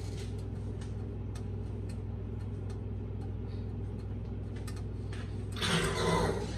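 Steady low hum in a small room with faint light clicks scattered through it, then a brief louder rustling noise about five and a half seconds in.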